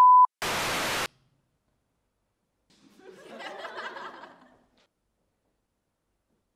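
A steady censor bleep cuts off just after the start, followed at once by a short burst of static-like hiss that stops abruptly. A couple of seconds later comes faint chuckling laughter lasting about two seconds.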